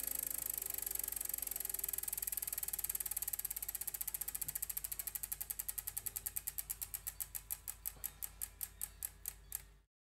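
Rapid, even mechanical ticking that gradually slows until the ticks are a few per second, then cuts off suddenly, over faint held tones.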